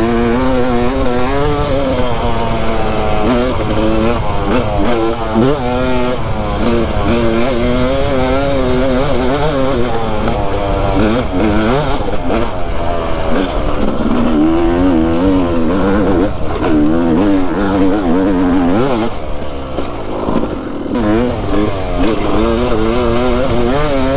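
A 2020 Yamaha YZ250's single-cylinder two-stroke engine being ridden along a dirt trail, its revs climbing and dropping over and over as the rider works the throttle and gears. The engine eases off briefly about twenty seconds in, then pulls again.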